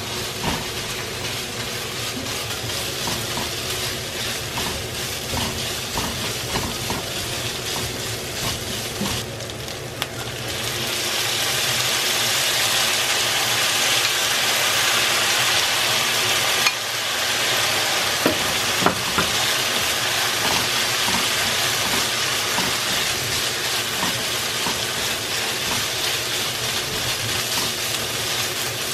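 Eggplant and ground pork sizzling in a hot nonstick wok while being stirred with a plastic spatula, with scattered scrapes and light knocks of the spatula on the pan. About ten seconds in, the sizzle turns louder and brighter as the doenjang seasoning sauce goes into the pan.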